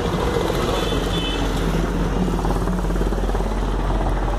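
Ford Mustang GT's 5.0-litre V8 idling with a steady, deep rumble.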